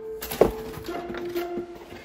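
Background music with held notes, with a sharp click about half a second in and a few fainter clicks.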